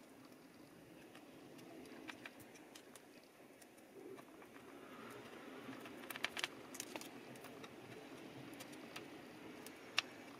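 Faint scattered clicks and scratches from a thread and a plastic spudger working under the glued battery cells of an opened MacBook Pro Retina, prying the battery loose. The clicks cluster past the middle, one sharper click comes near the end, and a low steady hum runs under them.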